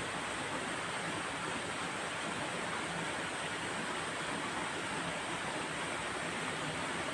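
Steady, even rushing of flowing water.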